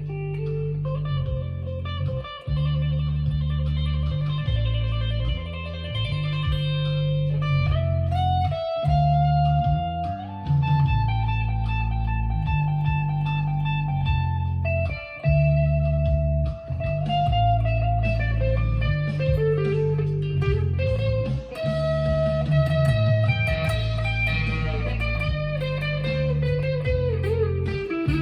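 Stagg SEL-STD electric guitar played through a Fender Mustang LT25 amp: a melodic lead line of held notes, some bent or sliding, over a steady low accompaniment.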